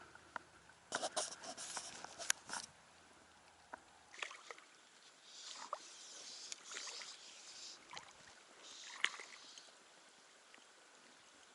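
Faint water lapping and splashing in small irregular washes, with scattered small clicks and rustles.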